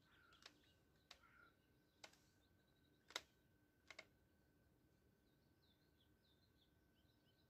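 Quiet outdoor ambience with faint bird chirps and a faint steady high tone, broken by five short sharp clicks or knocks in the first four seconds, the loudest just after three seconds in.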